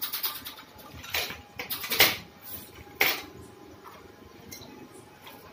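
A string of sharp knocks and clanks, about a second apart, the loudest about two seconds in.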